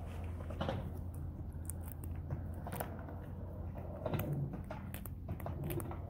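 Fingers picking stickers (burrs) out of the tread of a rubber shoe sole: scattered small clicks and scratches.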